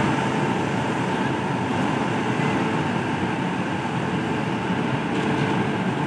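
Indian Railways electric locomotive moving slowly past at close range, running with a steady, continuous mechanical rumble and hum.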